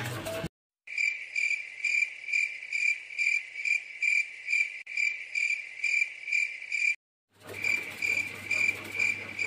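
Cricket chirping sound effect: a regular run of high chirps, about two or three a second. It cuts out abruptly to silence twice for a moment.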